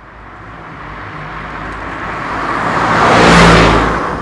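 A car driving past close by: engine and tyre noise building to a peak about three seconds in, then fading.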